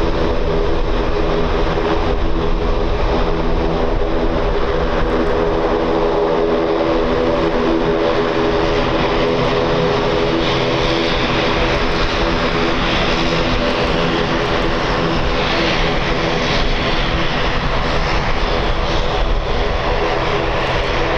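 ATR 72 turboprop airliner taxiing, its two engines and propellers running at low taxi power: a steady hum with several held tones.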